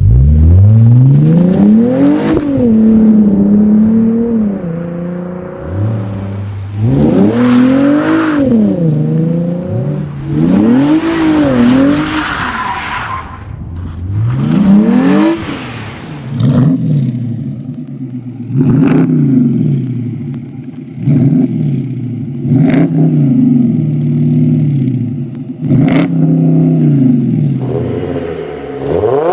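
Hyundai Genesis Coupe running through a loud exhaust, the engine note climbing and dropping back again and again as it revs and accelerates. In the second half it runs lower and steadier, with a few sharp cracks.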